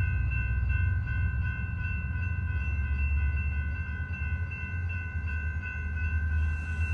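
Railroad grade-crossing bell ringing steadily over a low rumble, as the crossing gates lift at the end of the warning cycle.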